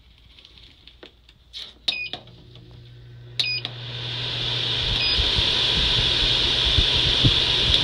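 WEN air filtration unit being switched on: its controls beep a few times, its motor starts with a low hum, and the fan's rush of air builds over a couple of seconds to a steady blowing.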